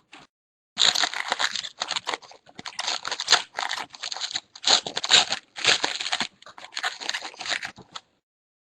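A football trading card pack's wrapper being torn open and crinkled, with irregular crackling bursts for about seven seconds that stop suddenly near the end.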